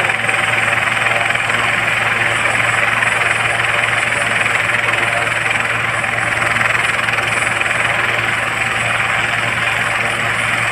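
Helicopter running on the ground with its rotors turning: a loud, steady mix of turbine noise and rotor beat with a thin high whine over it.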